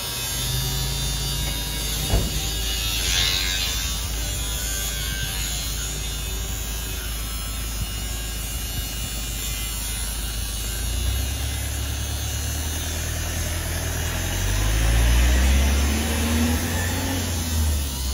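An engine running steadily close by, with a low drone that swells and rises in pitch in the second half.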